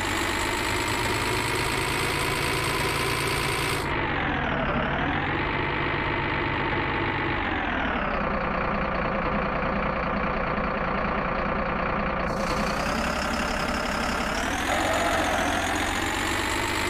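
Engine-like running sound of a radio-controlled toy excavator, steady throughout, its pitch dipping and recovering twice.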